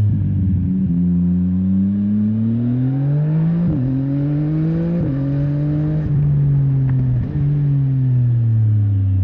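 CFMOTO 675NK's inline three-cylinder engine accelerating up through the gears, its pitch rising, with two quick upshifts a few seconds in. Then the rider rolls off and the pitch falls steadily.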